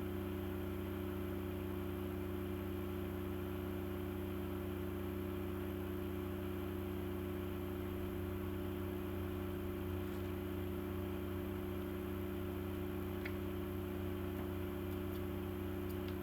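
Steady low electrical hum with a background hiss, even throughout, with a few faint small clicks in the last few seconds.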